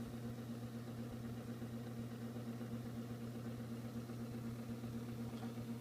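IBM Correcting Selectric III typewriter's electric motor running with no typing, a steady hum. A faint tick sounds near the end.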